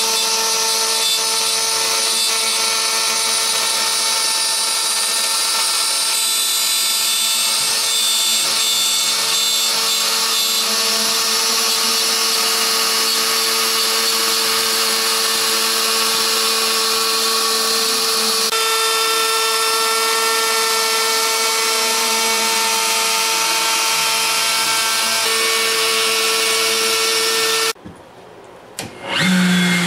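CNC router spindle running with a steady high whine as its small bit cuts a curved groove into an oak board; the whine shifts in pitch a few times as the cut goes on. The machine sound cuts off abruptly about two seconds before the end.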